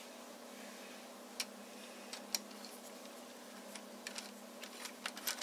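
An eighth-inch hex key turning in the steel clamp screw of a rifle's Picatinny rail mount to loosen it: faint, irregular small metal clicks and ticks, coming more often near the end.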